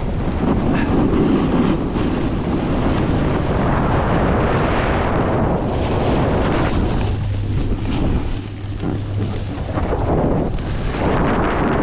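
Wind buffeting the microphone at speed, mixed with a Burton Custom X snowboard's edge scraping and hissing over the snow while riding downhill. The rush eases briefly about two-thirds of the way through.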